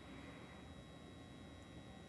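Near silence: room tone with a faint steady high-pitched whine.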